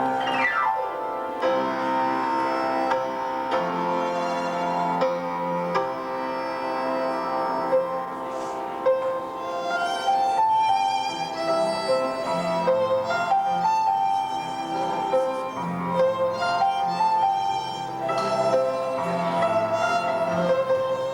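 Instrumental music: a slow melody moving over held notes, with a quick falling sweep at the very start.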